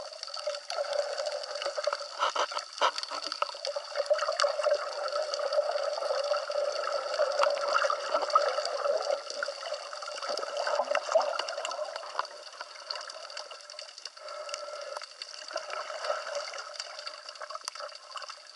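Water heard through a camera held underwater: a muffled, steady wash with many small clicks and crackles scattered through it, quieter over the last third.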